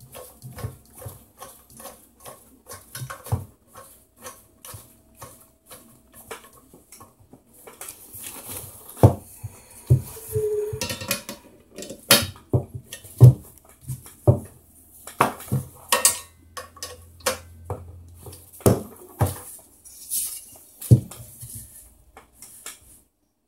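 Parts of a steel TV wall mount being handled: irregular clinks and knocks of metal pieces against each other, with rustling of packaging. The loudest knocks come in the second half.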